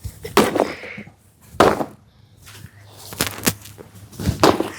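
A pumpkin being smashed: about six sharp hits a second or so apart.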